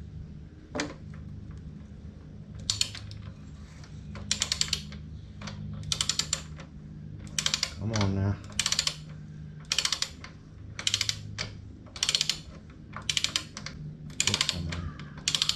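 Ratchet wrench being swung back and forth on a loose nut, its pawl clicking in quick bursts about once a second. The nut turns freely and is a long way from snugging up.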